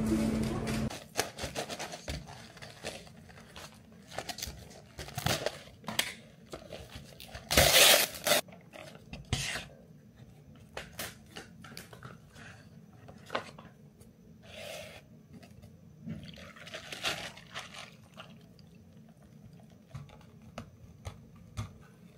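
Music ending about a second in, then scattered small clicks, knocks and scrapes of objects being handled, with a louder rustling burst about eight seconds in.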